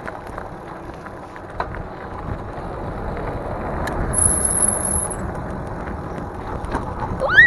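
Wind on the microphone and tyres rolling on asphalt as a Mongoose Dolomite fat-tire e-bike is ridden along, swelling about four seconds in, when a thin high whine also sounds for about a second. Near the end, a short squeal that rises and falls is the loudest sound.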